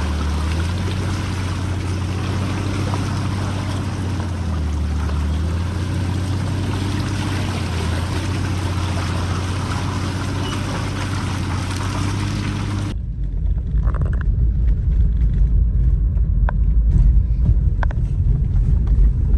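A steady low motor hum whose pitch shifts slightly a couple of times. About 13 seconds in it cuts off abruptly and gives way to a low rumbling noise with a few faint clicks.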